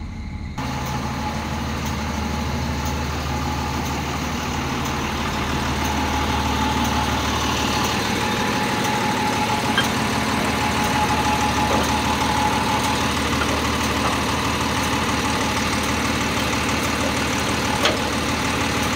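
Truck's diesel engine idling steadily under an even hiss that grows a little louder about six seconds in, with one sharp click near the end.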